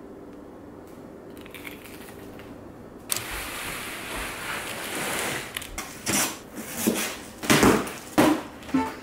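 Faint room hum, then about three seconds in a blade starts slicing through packing tape on a cardboard box, followed by several loud rips and scrapes as the cardboard is cut and pulled open.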